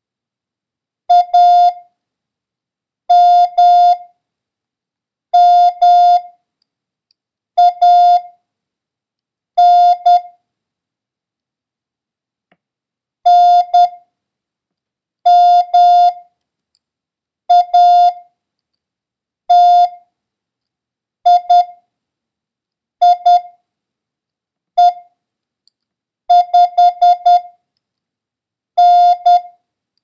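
Morse code practice tone: a single steady-pitched beep keyed into dits and dahs, sending a random run of single characters one at a time with a pause of about a second between them. Several quick characters come close together near the end.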